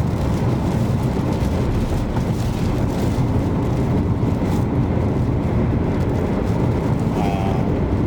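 Steady low rumble of strong rear-flank downdraft wind buffeting a moving car, heard from inside the cabin along with road noise.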